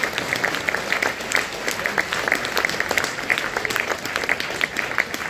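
Audience applauding steadily after a poem: many hands clapping at once.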